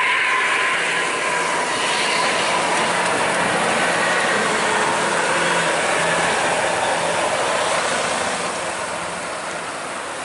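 Road noise from a large vehicle: engine hum and tyre noise running steadily, easing off near the end. A held horn note fades out about a second in.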